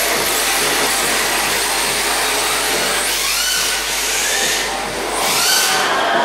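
Two electric RC drift cars running in tandem: electric motors whine up and down in pitch as they throttle, over a steady hiss of tyres sliding on the track floor.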